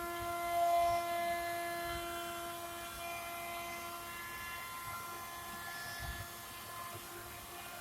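A machine running steadily with a whine at several pitches, the lowest the strongest.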